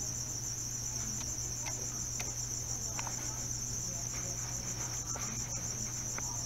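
A cricket trilling steadily and continuously at a high pitch, with a low steady hum underneath and a few faint clicks.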